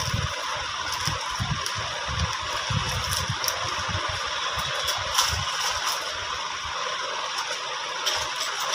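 Handling noise as a small jewellery box is picked up and handled: rustling, scattered light clicks and irregular low bumps, over a steady background hiss.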